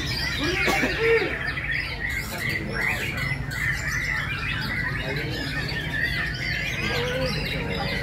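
Many white-rumped shamas (murai batu) singing at once in a contest: a dense, overlapping chorus of whistles, trills and harsh notes, with a louder call about a second in.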